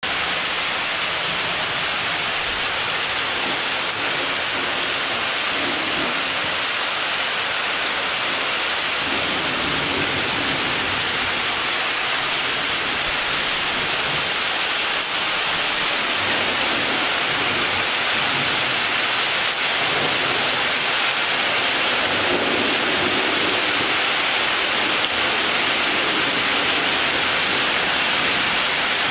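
Rain falling steadily in a thunderstorm, a constant hiss of water on surfaces, with low rolling thunder swelling up twice.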